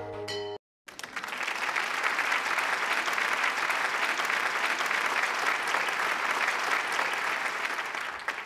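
A short tail of background music cuts off, and after a brief gap a crowd applauds steadily, dying away at the very end.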